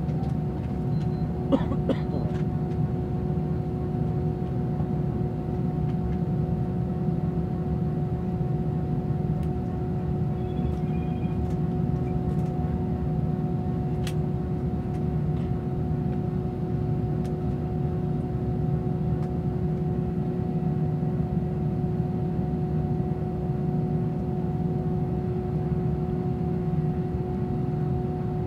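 Steady cabin noise of an Airbus A320-family airliner taxiing after landing: a low rumble with a constant droning tone over it from the idling jet engines and cabin air. A single short click about a second and a half in.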